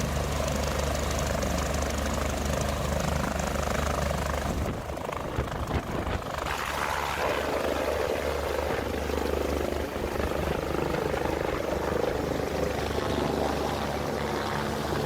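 Steady engine drone, with a brief unsteady break about five seconds in.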